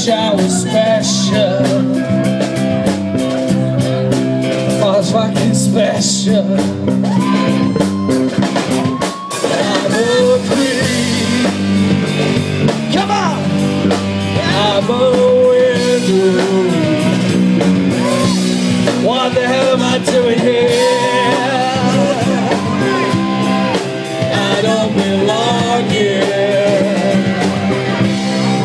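Music: a male crooner singing a melody over steady instrumental backing.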